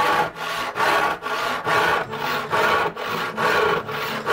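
Stanley SharpTooth handsaw crosscutting a wooden board, its teeth cutting through the wood in steady back-and-forth strokes, about two a second.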